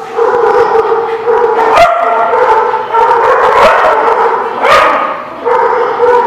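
A pack of dogs barking and yapping, with a long high-pitched howling tone held for a second or two at a time beneath them. A few sharp single barks stand out, the loudest about two seconds in and near five seconds in.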